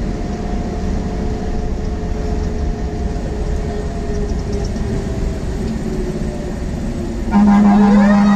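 Fire engine's engine and road noise, heard from inside the cab, running steadily while it drives. About seven seconds in, a loud steady horn blast starts and the siren begins to wind up, rising in pitch.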